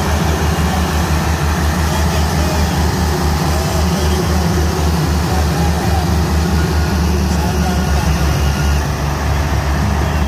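Two Ford diesel tractors at full throttle under heavy load, pulling against each other in a tug-of-war. A deep, steady, pulsing engine note with no let-up.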